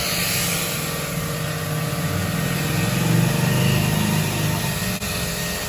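Starq 2100-watt electric pressure washer running steadily, its motor and pump humming under the hiss of the foam cannon spraying shampoo foam.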